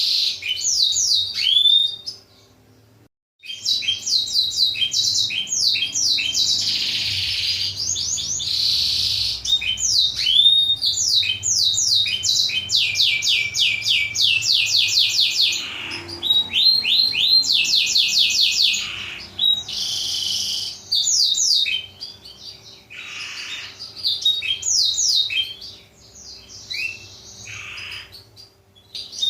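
Black-throated canary (blackthroat) song: long phrases of fast trills made of repeated high, downward-sweeping notes, separated by short pauses, over a faint steady hum. The song breaks off for about a second of silence near the start.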